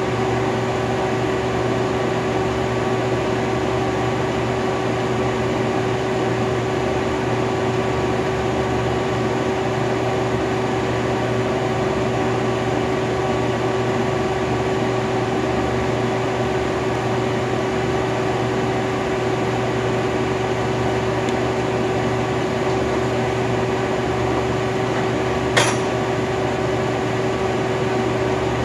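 Robinair AC recovery/recharge machine running steadily, its internal pump giving a constant hum with a steady tone, and a single sharp click near the end.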